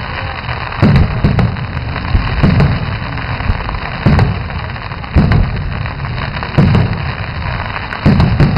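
Aerial firework shells bursting in a display: about ten loud booms at irregular intervals, several in quick pairs, each with a low rumbling tail, over a continuous crackle of burning stars.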